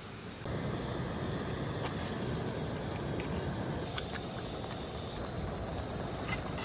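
Steady rushing of a mountain stream, with a few faint light clicks.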